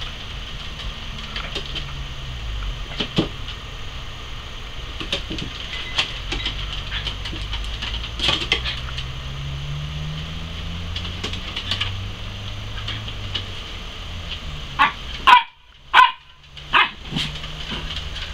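Small dogs playing on a wooden deck, their claws clicking on the boards, with a few short, loud barks near the end.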